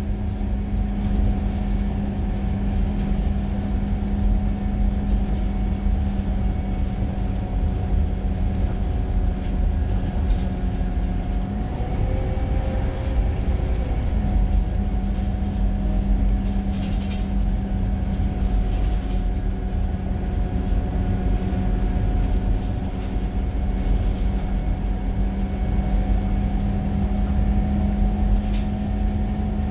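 Scania Irizar i4 coach's engine pulling at road speed, heard from inside the cabin: a steady engine note over a deep rumble from the road. About twelve seconds in the note changes for around two seconds, then settles back.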